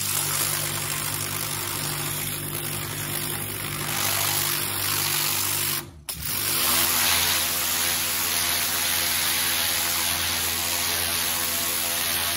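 Pressure washer running: a steady motor-and-pump hum under the hiss of the water jet spraying a roller-shutter panel. The sound briefly cuts out about six seconds in, then carries on with a lower hum.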